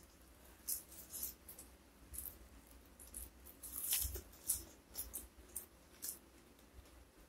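Chewing of raw leafy greens: irregular crisp crunches and small wet mouth clicks, loudest about four seconds in.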